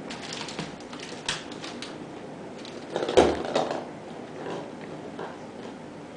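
Light creaks and clicks from a wicker basket, with a louder knock about three seconds in.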